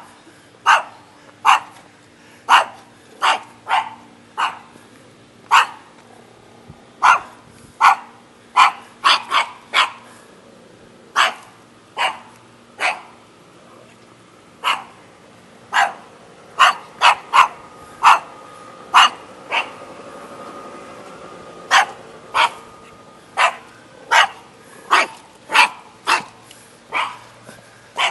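Small dog barking over and over in short, sharp barks, about one or two a second, in irregular runs with brief pauses.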